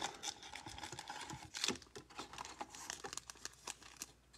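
Foil trading-card packs crinkling as they are handled and lifted out of a cardboard hobby box, with scattered light taps and clicks.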